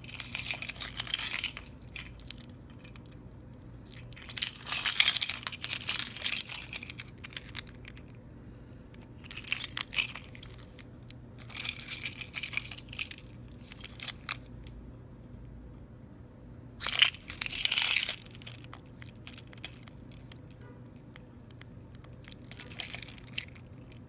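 A bunch of metal keys on a keyring jangling and clinking in about six short bursts as it is handled, the loudest about five and seventeen seconds in, over a faint steady hum.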